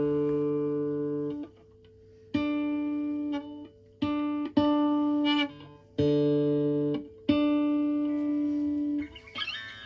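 Marlin Sidewinder electric guitar strummed a handful of times, each chord left to ring for about a second, as its freshly set-up tuning is checked and holds.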